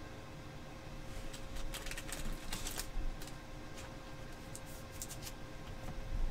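Paper trading cards being handled by hand: quick clicking rustles of cards sliding and tapping against each other, in two short spells, one from about one and a half to three seconds in and another around five seconds in, over a faint steady hum.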